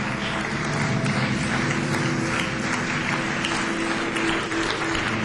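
Audience applauding, dense steady clapping over background music with sustained low tones.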